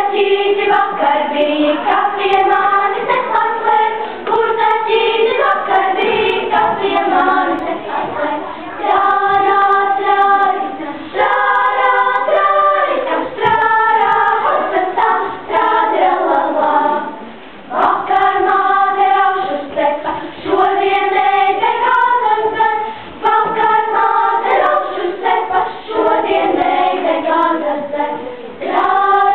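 Children's choir singing, in sustained phrases with a short break between phrases about halfway through.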